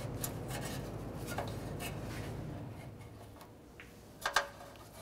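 Gloved hands rubbing along the oxygen sensor's wire and the sheet-metal exhaust heat shield, with a few faint light clicks and ticks, over a low hum that fades about halfway.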